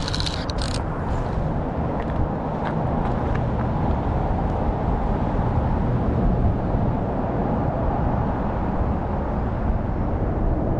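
Steady low outdoor background rumble. A few sharp clicks come in the first second, and a few faint ticks follow about two to three seconds in.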